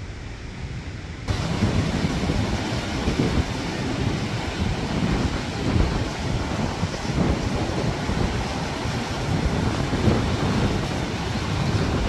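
Sea waves breaking and washing around shoreline rocks, with wind buffeting the microphone as a gusty low rumble. The sound turns abruptly louder and fuller about a second in.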